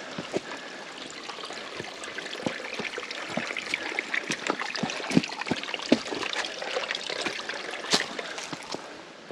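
Footsteps scuffing and knocking on the rocks of a dry creek bed, irregular sharp knocks over a steady hiss that swells in the middle.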